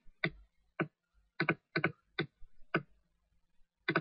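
Irregular clicks on a computer keyboard and mouse, about nine short clicks, some in quick pairs.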